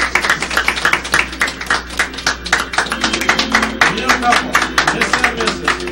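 A small crowd of guests clapping, with music starting to play about halfway through.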